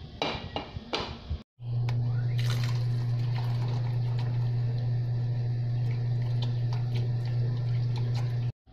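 Tap water running steadily onto cooked spaghetti in a bowl in a kitchen sink, with a strong steady low hum under the splashing. It is preceded by a few short clattering sounds in the first second and a half.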